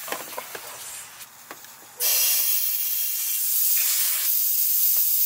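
A few light clicks, then about two seconds in a steady hiss of rushing air starts suddenly and keeps going.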